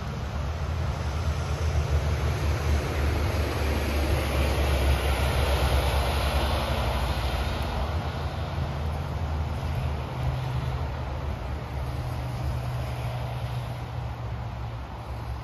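A passing motor vehicle: a low engine hum under a wash of noise that swells to its loudest about six seconds in and slowly fades.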